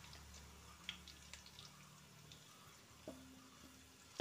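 Near silence: vegetables frying gently in a pan on a low flame, with a few faint scattered ticks and pops.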